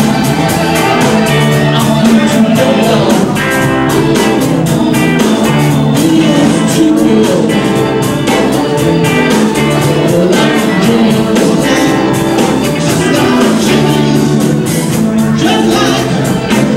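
Live blues band playing a song: electric guitar, bass and drums with a steady beat.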